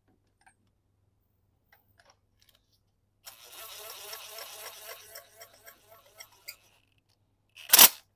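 Impact gun running a spark plug in or out: a rattling run of about two seconds that fades into scattered ticks, then one short, loud burst near the end.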